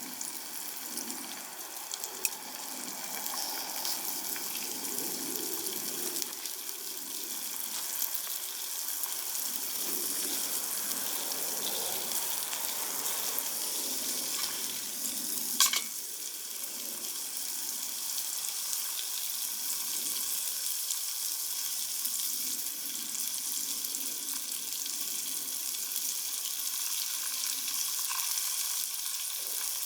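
Wild boar meat sizzling over a campfire: a steady hiss with fine crackling, and one sharp crack about halfway through.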